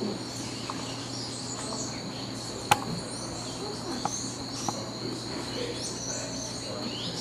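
Tropical forest ambience: a steady, high-pitched insect drone with scattered bird chirps over it. A single sharp click about two and a half seconds in, with two fainter ticks a little later.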